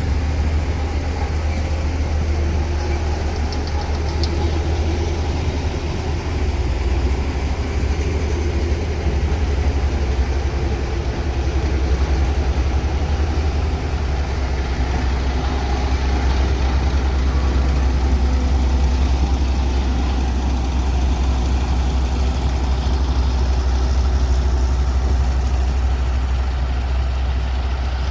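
Heavy road-construction machine's diesel engine running steadily, with a deep low hum.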